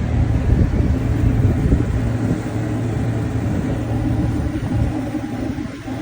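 Heavy engine running with a steady low hum over a rough rumble, easing off a little near the end.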